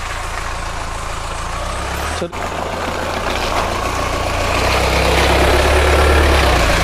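A Mahindra Thar's engine runs at low revs as it crawls along a muddy, waterlogged track. Its steady low note grows louder as it comes close.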